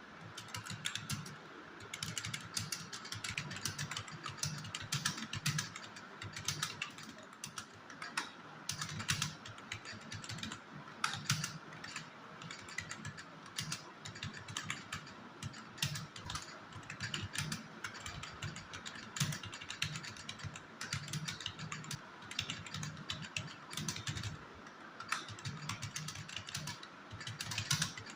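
Fast, continuous typing on a computer keyboard: a steady stream of uneven key clicks and clacks at about 43 words per minute, with short pauses between bursts.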